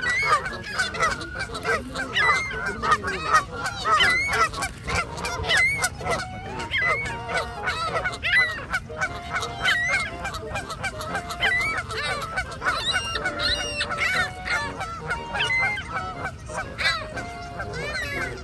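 A flock of Canada geese honking, with many short calls overlapping continuously.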